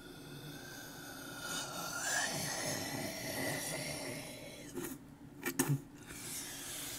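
A long, slow breath blown out through pursed lips, with a faint whistle-like tone rising in it, followed by a few quick clicks about five seconds in.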